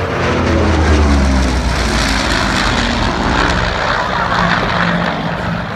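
Propeller-driven warbird's piston engine on a fast low pass. The engine note is loudest about a second in and drops in pitch as the plane goes by.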